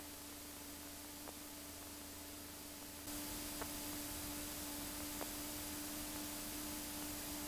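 Faint steady hum and hiss from a light aircraft's intercom audio line, with a soft click every couple of seconds; it steps slightly louder about three seconds in.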